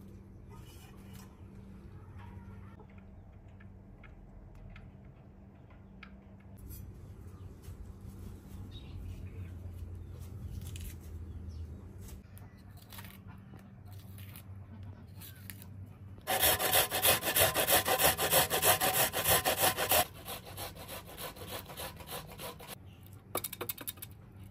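An onion being grated on a metal box grater into a steel bowl: rapid rasping strokes, loudest for about four seconds past the middle, then lighter strokes and a short final burst near the end.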